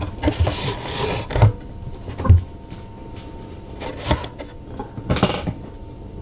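Handling noises: rustling and a few dull knocks as a hand grips and moves a plastic kitten scale tray. The noise comes in four or five short bouts spread over the stretch.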